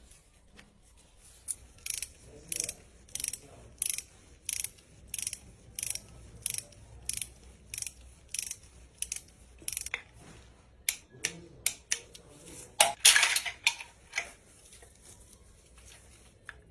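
Hand ratchet wrench clicking in short, even strokes, about one and a half a second, while turning a fastener on the engine. The strokes stop about ten seconds in and give way to a few scattered clicks and a louder metallic clatter.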